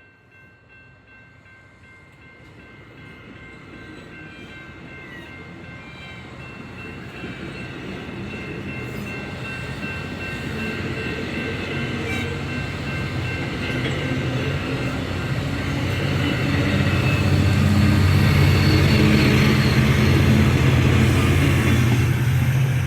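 MARC commuter train approaching and passing, its low rumble growing steadily louder over about fifteen seconds and loudest near the end.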